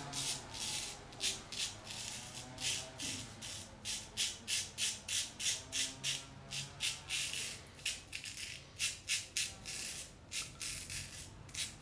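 Razor scraping through lathered stubble in a quick series of short, rasping strokes, about two to three a second.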